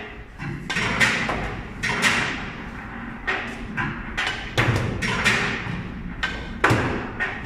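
Pool balls being played in quick succession: a run of about eight sharp knocks and clacks, irregularly spaced, from cue tip on ball, ball on ball and balls dropping into the pockets.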